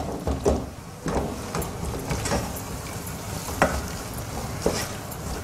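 Wooden spatula stirring and scraping a thick masala paste in a nonstick pan, with a light sizzle and a few short knocks of the spatula against the pan. The ground coconut-spice paste is being fried to cook off its raw smell.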